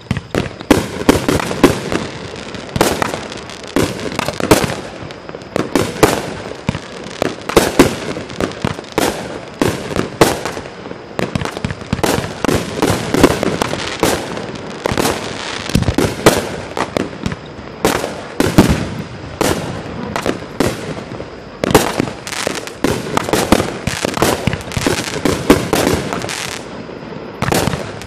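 A 35-shot, 19 mm consumer fireworks cake firing: shells launch from its tubes and burst overhead in quick succession, a sharp report every second or less, with sudden loud peaks throughout.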